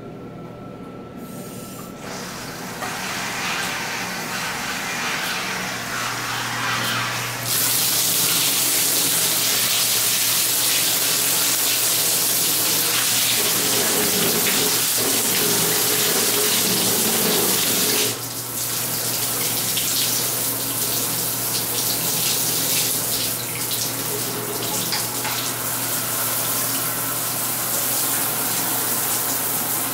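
Water spraying from a hansgrohe three-mode hand shower onto the inside of a bathtub, a steady hiss. The spray comes in about two seconds in, turns abruptly louder and hissier about seven seconds in, and drops back to a softer spray about eighteen seconds in.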